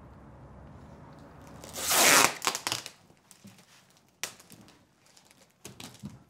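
A loud rustling swish about two seconds in, then scattered light clicks and one sharp click, as a room door is pushed open.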